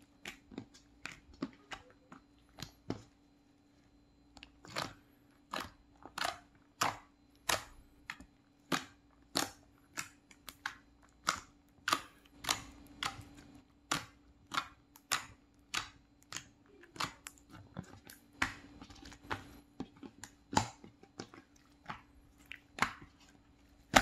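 Glossy slime being poked and pressed with fingertips, making a series of sharp, wet pops and clicks as air pockets burst. There are about two a second, sparse at first and steadier after the first few seconds.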